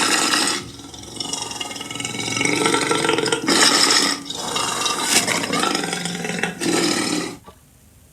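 A series of short cartoon sound effects played one after another, each changing abruptly into the next, with a brief quieter gap near the end.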